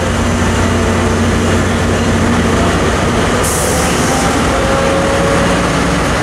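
Tri-Rail Brookville BL36PH diesel locomotive running under load as the train pulls out, a steady low drone with a tone that rises in pitch in the second half as it gathers speed. A short hiss about three and a half seconds in.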